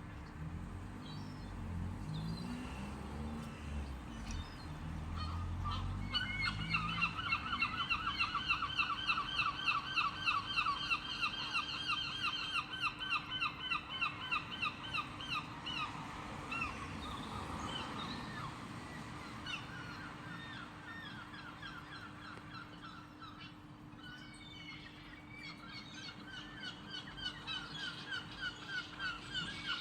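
A bird giving a long run of rapid, repeated honking calls, several a second, starting about six seconds in and fading after about sixteen seconds, with further shorter runs near the end.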